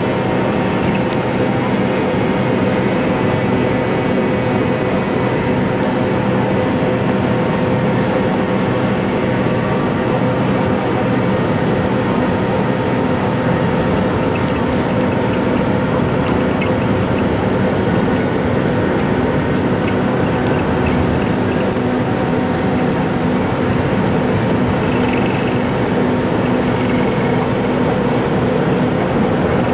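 Cabin noise of an MD-82 airliner during its takeoff roll and climb-out: the tail-mounted Pratt & Whitney JT8D turbofan engines running at takeoff thrust, a steady loud noise with several steady whining tones, heard from inside the cabin.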